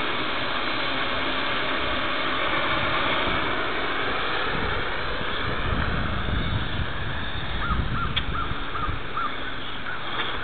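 Small camera drone's motors and propellers running steadily as it lifts off the pavement and climbs, heard through its own on-board camera.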